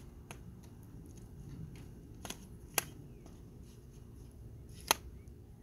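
A few sharp clicks and knocks from the Victiv T72 tripod's monopod leg being handled as its twist-lock sections are unlocked and slid together. The loudest click comes near the end.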